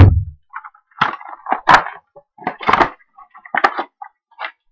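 A loud thump on the table, then about five short crackling rustles as foil trading-card packs are handled and stacked.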